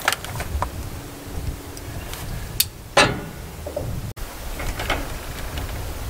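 Clunks and knocks from handling tools and heavy cable: a sharp click at the start and one louder knock about three seconds in, over a low rumble.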